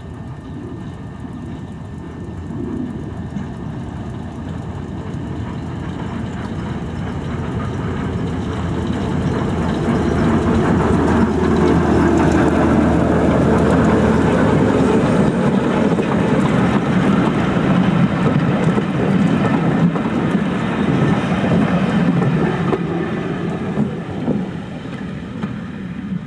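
Class 08 diesel shunter's English Electric six-cylinder engine running as the locomotive approaches and passes close by at low speed. It grows steadily louder over the first ten seconds, holds at its loudest while the locomotive goes by, then eases off near the end as the coaches roll past behind it.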